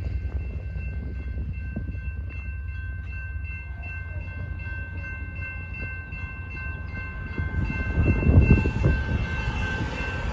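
Railroad crossing warning bell ringing steadily with quick repeated strikes while the signal stays active as the gates rise after a train has passed, over a low rumble from the departing train. A vehicle passing over the crossing brings a louder low surge about eight seconds in.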